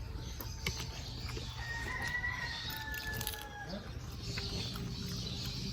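A rooster crowing once, one long call of about two seconds starting about a second and a half in, with faint clicks alongside.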